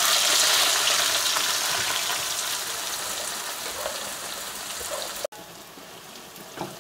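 Sliced onions sizzling in hot oil in a kadai: a loud sizzle that starts as they hit the oil and slowly dies down, then drops suddenly to a quieter steady sizzle a little after five seconds as they are stirred.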